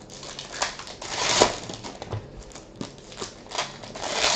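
Trading-card packs and cards being handled: irregular crinkling and rustling of wrappers and card stock, with small clicks.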